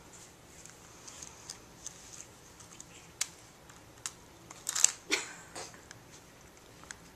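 Tiny puppy playing and mouthing at a small plastic object and its leash: scattered light clicks and scuffs, with a louder cluster of clicks and rustling about five seconds in.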